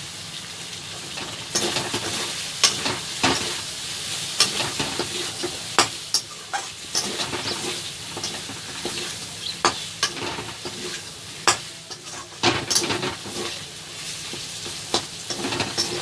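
Chicken and capsicum sizzling in a pan as a spatula stirs it, with a steady frying hiss from the nearly dry curry. Irregular sharp clicks and scrapes of the spatula against the pan come every second or so.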